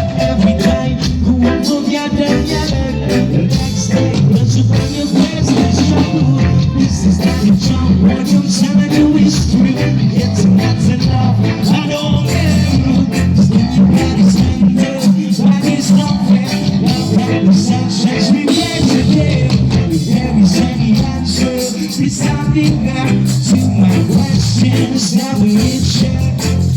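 Live band playing amplified music through a PA system during a sound check: a singing voice over strong bass and drums, steady throughout.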